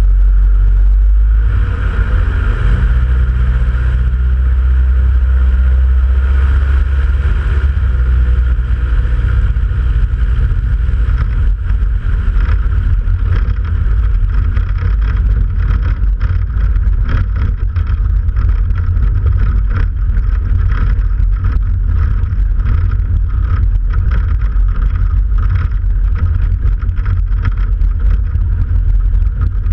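Jabiru light aircraft's piston engine and propeller running steadily while taxiing across grass. The sound turns rougher and choppier after about ten seconds.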